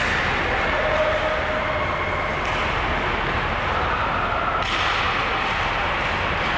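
Ice hockey rink ambience: steady arena noise during play, with a single sharp crack a little under five seconds in.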